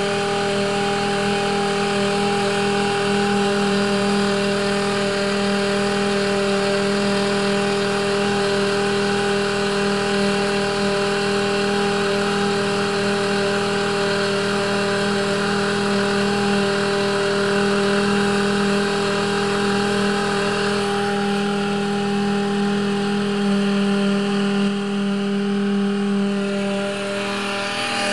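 Router-powered homemade outboard motor running steadily at high speed, a constant high-pitched electric motor whine over a noisy rush, dipping slightly a little before the end.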